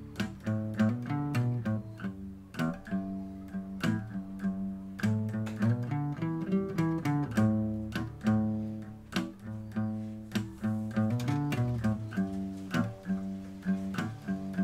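Background music: a plucked string instrument playing a run of notes over held bass notes.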